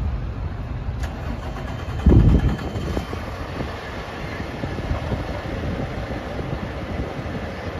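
Fire engine's diesel engine running as the pumper slowly pulls away, with a sharp click about a second in and a brief loud low rumble just after two seconds.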